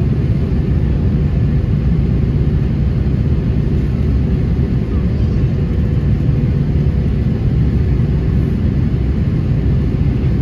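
Steady cabin noise inside an Airbus A330-200 on descent for landing: a constant low rumble of its engines and the airflow over the fuselage.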